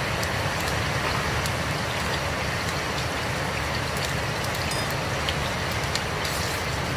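Steady rain falling, an even hiss with scattered faint ticks of drops.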